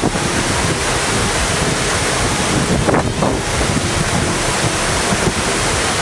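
Waterfall rushing steadily: a loud, even noise of falling water.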